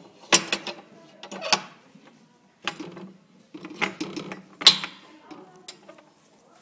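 A metal sliding bolt and wooden stall door clanking and scraping in a series of short rattles and sharp knocks, the loudest clank about three quarters of the way through.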